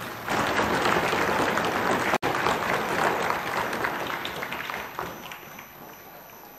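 A hall full of people applauding, the clapping rising sharply just after the start and dying away over the last second or two. The sound drops out for an instant about two seconds in.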